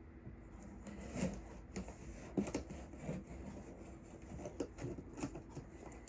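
A cardboard shipping box being worked open by hand: irregular rubbing, scraping and light knocks on the cardboard, with a few sharper hits along the way.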